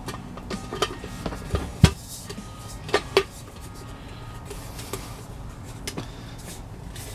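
Metal headlight-bucket parts clicking, clinking and knocking as they are handled and fitted together, with a heavier thump about two seconds in, over a steady low hum.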